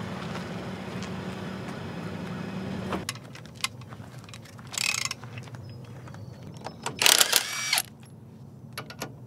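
Cordless power tool whirring in two bursts on the lug nuts of a boat-trailer wheel during a flat-tire change: a short burst near 5 s and a longer one about 7 s in that rises and falls in pitch. Metal tools clink between the bursts. A steady hum fills the first three seconds and cuts off suddenly.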